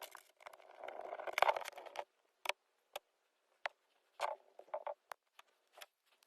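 Hand work on a metal ratchet: a scratchy rubbing for about two seconds, then scattered small clicks and taps.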